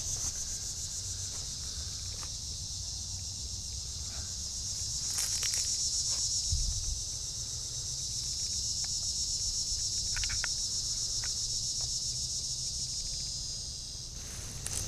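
A chorus of singing insects such as crickets: a steady, high-pitched trill of rapid pulses, swelling slightly about five seconds in.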